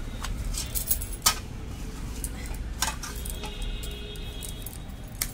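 Knocks and clinks against a stainless steel bowl as spinach dough is kneaded by hand in it, about five separate knocks with the loudest about a second in.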